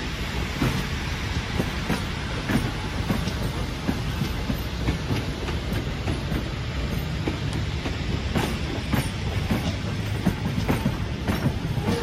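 Vintage railway passenger carriages rolling past at close range: a steady low rumble with irregular clicks and clacks as the wheels run over the rail joints.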